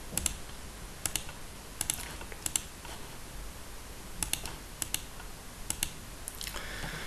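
Computer keyboard keys clicking irregularly, about a dozen short taps, many in quick pairs, over faint room hiss.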